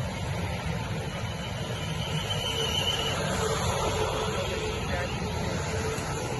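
South Western Railway Class 450 Desiro electric multiple unit at the station: a steady low rumble with a constant whine, and a higher whine for about a second partway through.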